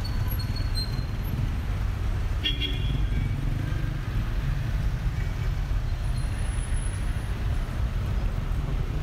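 City street traffic: a steady low rumble from cars, with one short car-horn toot about two and a half seconds in.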